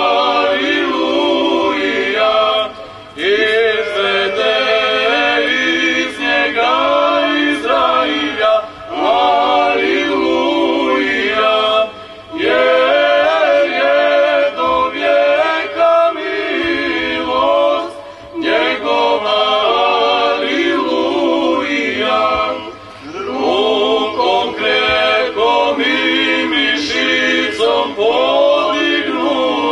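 Small mixed choir of women's and men's voices singing a cappella, in long sung phrases broken by short breath pauses every few seconds.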